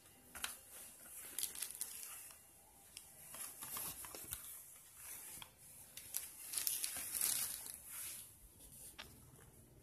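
Clear plastic packaging crinkling and rustling in irregular bursts, with a few sharp plastic clicks from handling a Tamiya Mini 4WD Speed Checker; the rustle is loudest about seven seconds in.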